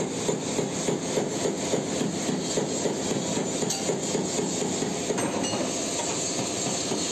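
Rapid light hammer taps on the sheet-metal body panel, about four a second, over a steady background hiss.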